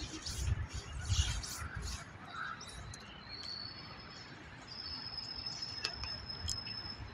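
Outdoor bird chirping in short high calls. From about a third of the way in, a thin, steady high-pitched call holds for several seconds and steps up in pitch twice. Low rumbling on the microphone comes in the first two seconds.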